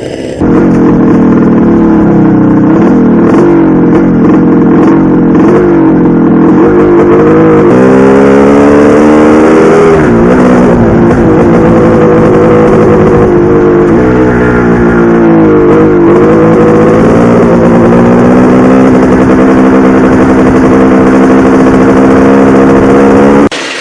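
Two-stroke dirt bike engine running hard, heard close up. The pitch rises in repeated sweeps that each drop back, as the bike accelerates up through the gears, then holds at a steadier speed with brief dips and pickups of the throttle.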